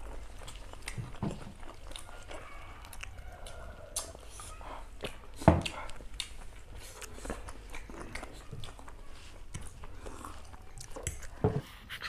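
Chewing of spicy chow mein noodles, with scattered small clicks and smacks, one louder about five and a half seconds in.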